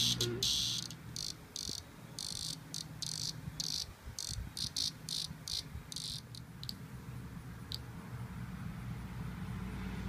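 A cicada caught by a cat, buzzing in short, broken bursts; the bursts grow sparser and stop about three-quarters of the way through.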